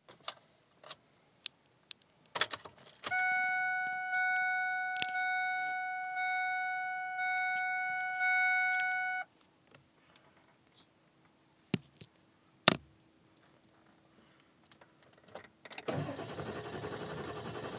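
Keys jangling and the ignition key turned in a 1999 Ford F-250 with the 7.3 L diesel; a dashboard warning chime sounds as a steady tone in pulses for about six seconds. A few seconds later comes a single sharp click with no cranking, as the engine won't turn over, then a steady noise starts near the end.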